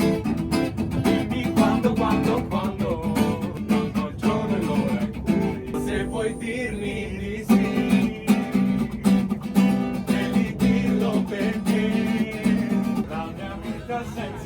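Background music: acoustic guitar plucked and strummed, with singing.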